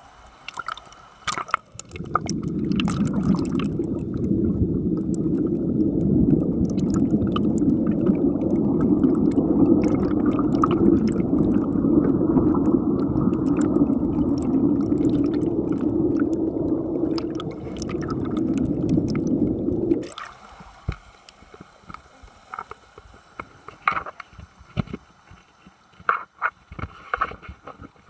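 Muffled underwater rushing and bubbling picked up by a camera held under water. It cuts off abruptly about two-thirds of the way through as the camera leaves the water, leaving only scattered drips and handling clicks.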